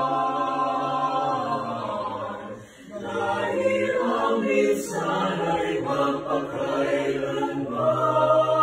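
Mixed choir singing unaccompanied: a sustained chord, a brief break about three seconds in, then moving voice parts that settle into another held chord near the end.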